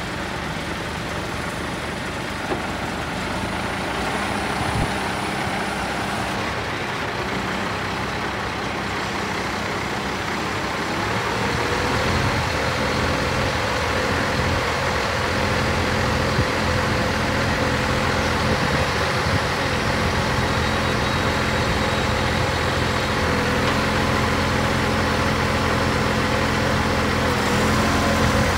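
Scania 124GB crane truck's straight-six diesel engine running steadily while its loader crane boom is hydraulically raised and extended. About twelve seconds in, the engine speeds up, gets a little louder and a steady whine joins it as the crane works.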